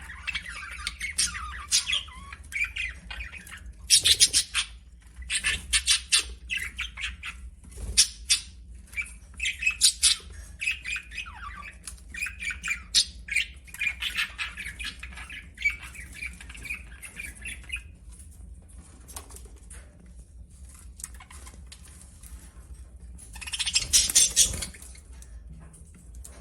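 Pet budgerigars chattering: a busy mix of quick clicks and warbled chirps that thins out after about two-thirds of the way. A brief loud rustle comes near the end.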